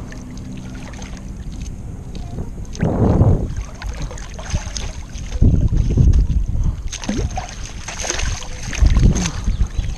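Wind buffeting the microphone, a steady low rumble with stronger gusts about three seconds in, around six seconds and near the end.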